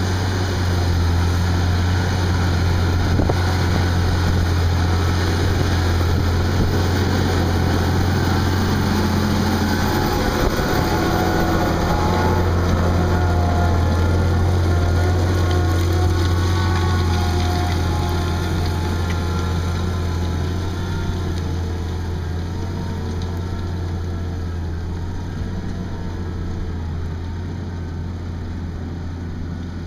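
Fendt 936 tractor's six-cylinder diesel engine running steadily under load while pulling a seven-furrow plough, a deep continuous drone that fades gradually over the second half as the tractor moves away.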